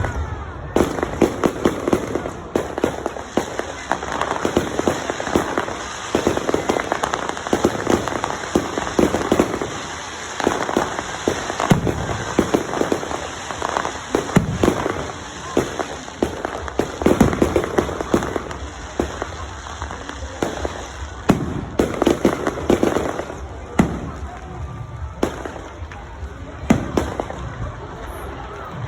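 Fireworks going off in a long, dense run of bangs and crackling pops that comes in irregular clusters, with barely a gap.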